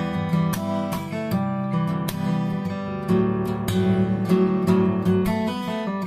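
Background music: a strummed acoustic guitar playing a steady rhythm of chords.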